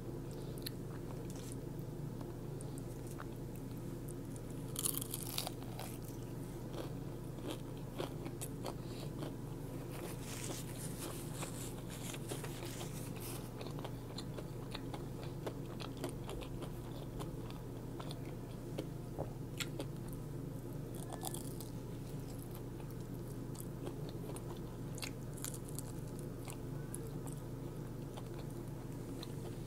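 Close-up eating sounds of crunchy fried fast food: bites and chewing with scattered sharp crunches, the loudest cluster about five seconds in and another about ten seconds in. A steady low hum runs underneath.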